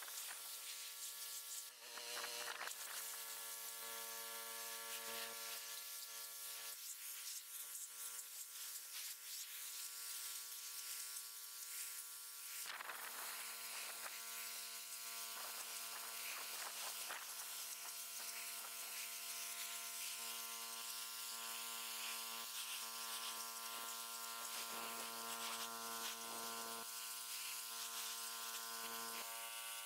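Small electric pressure washer running under load, its motor humming steadily, with the hiss of the high-pressure water jet spraying against concrete bricks.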